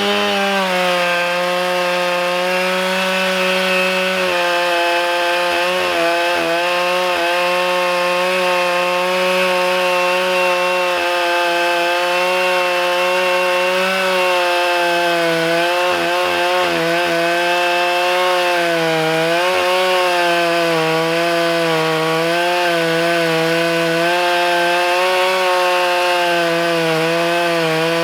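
Stihl MS 661 chainsaw with a ripping chain running at full throttle in an Alaskan chainsaw mill, steadily ripping a slab lengthwise from a log. The engine note holds steady, dipping slightly in pitch now and then as the chain loads up in the cut.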